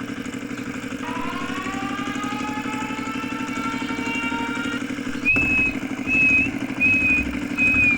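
Mini tractor's engine sound running as a steady droning hum. About a second in, a whine joins it and slowly rises in pitch, then stops. From the middle on, short high beeps repeat about once a second over louder surges of the engine.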